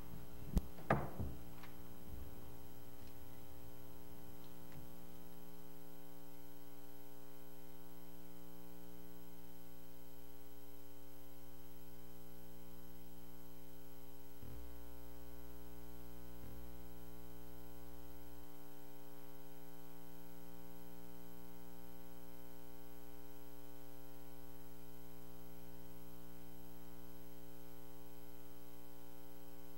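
A steady electrical hum from the sound system, with two sharp thumps about a second in and two faint clicks about halfway through.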